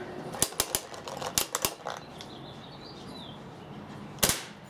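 A quick run of sharp clicks in the first two seconds, then a single louder, sharp shot from a paintball marker running on a CP regulator a little after four seconds in.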